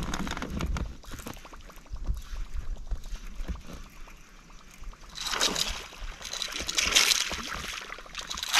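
Water splashing as a hooked fish thrashes at the surface while it is reeled in to the boat, with louder surges about five and seven seconds in.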